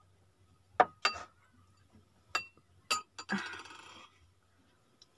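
A metal spoon clinking against a ceramic bowl: four sharp clinks, the last two with a short ring, followed by a brief softer rustle.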